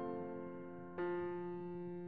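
Slow background piano music: a chord rings and fades, and a new chord is struck about a second in and left to ring.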